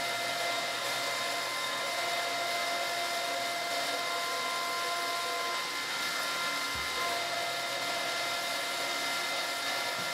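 Electric pump running steadily with a whine, pushing water at about 5 gallons per minute through a clear acrylic reservoir model. A soft low thump about seven seconds in.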